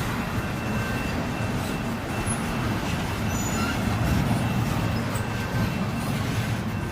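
Intermodal freight train rolling past, a steady rumble of wheels on rail with a faint high steady tone over it.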